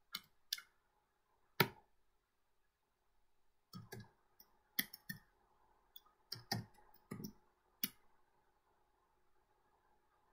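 Computer keyboard keystrokes typed at an unhurried pace: three separate key clicks in the first two seconds, then a quicker run of about eight from about four to eight seconds in. A faint steady hum sits underneath.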